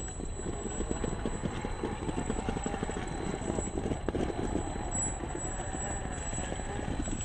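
A CrossRC XT4 RC crawler's stock 540 brushed motor and geared drivetrain whining under load as it climbs a boulder, with a dense rapid chatter from the gears and tyres working on the rock.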